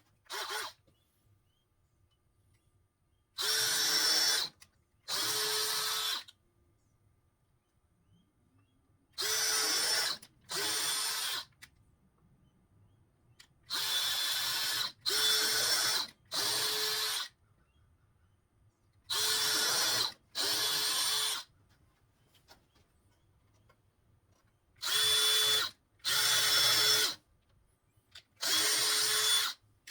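Power drill driving 1 3/4 inch Phillips wood screws into the wooden side panels. It comes in short runs of about a second each, about a dozen in pairs and threes with pauses between, the motor whining at a steady pitch.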